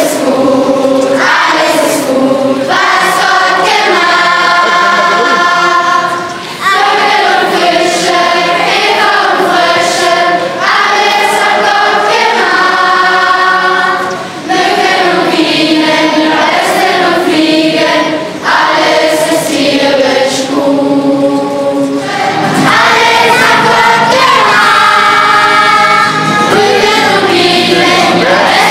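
A large group of children singing a Christian song together in chorus. A low bass accompaniment joins about three-quarters of the way in.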